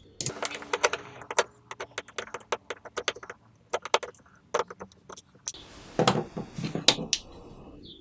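A wood screw driven by hand with a Leatherman Rebar's fixed Phillips screwdriver: a run of irregular sharp clicks as the bit turns in the screw head and the grip shifts. Near the end comes a metallic clatter as the multitools are handled.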